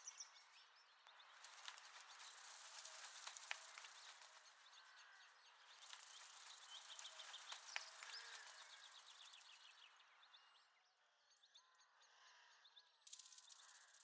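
Near silence: faint outdoor wildlife ambience, with soft high chirps and short trills rising in two gentle swells, a couple of seconds in and again around the middle.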